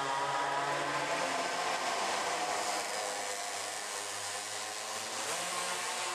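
Minimotos (pocket bikes) with small two-stroke engines buzzing at high revs around the track. The engine note sags, then climbs again about five seconds in as a rider accelerates.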